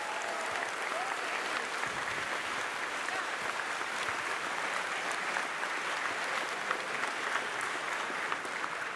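Crowd applause: many hands clapping steadily.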